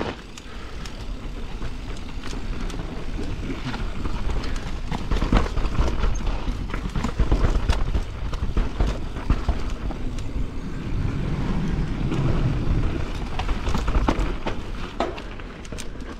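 Propain Spindrift AL 29 enduro mountain bike descending a rough forest trail: knobby tyres rumbling over dirt, roots and rocks, with many irregular sharp knocks and rattles from the bike as it hits bumps.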